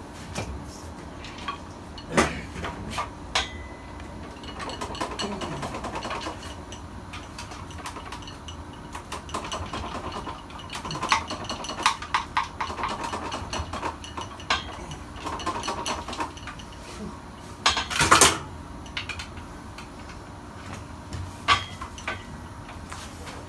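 Hand tools clinking, tapping and knocking on metal while a stuck generator housing is worked loose from the engine, with irregular clatter throughout. One louder, sharper burst comes about three-quarters of the way through.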